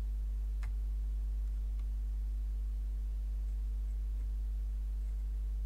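Steady low electrical mains hum with a stack of evenly spaced overtones, with a couple of faint ticks about half a second and two seconds in.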